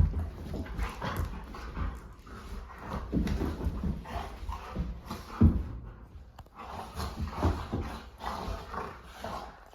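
Two dogs play-fighting: short whines and panting mixed with scuffling and bumping, with a sharp thump about five and a half seconds in. It is rough play, not a real fight.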